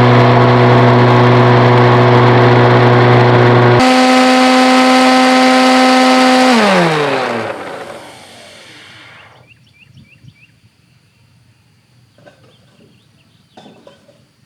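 Insignia bagless upright vacuum cleaner running with a steady whine; its pitch steps up about four seconds in. It is then switched off and its motor spins down with a falling whine, leaving only a few faint small clicks.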